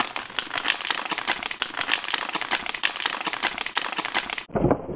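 A plastic bag of frozen Gardein Chicken Scallopini patties crinkling loudly as it is opened and handled: a dense, irregular run of crackles that cuts off about four and a half seconds in.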